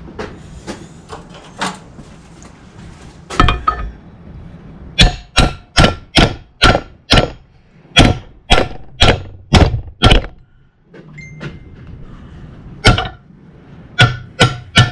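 Hammer blows on the clutch pedal of a 1955 Fordson Major, driving the worn pedal bush out of its boss. A few light taps come first, then a run of about a dozen sharp, ringing metal strikes at roughly two a second, a short pause, and a few more blows near the end.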